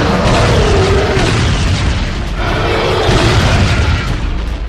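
Cartoon explosion sound effects: continuous booming and rumbling, with background music underneath.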